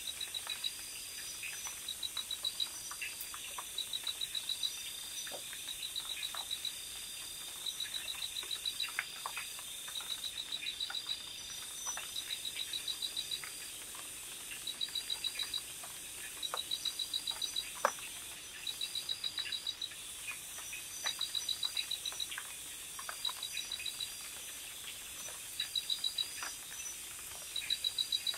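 Night insects chirping: bursts of fast, high pulsed chirps about a second long, repeating every couple of seconds over a steady high hum, with scattered faint ticks mixed in.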